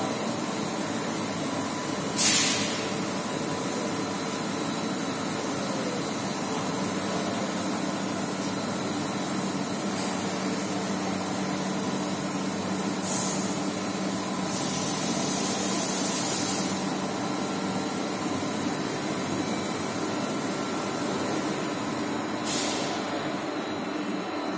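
Steady machine-like background noise with a faint hum, broken by short bursts of hissing: a sharp one about two seconds in, a longer one lasting about two seconds past the middle, and brief ones near the middle and near the end.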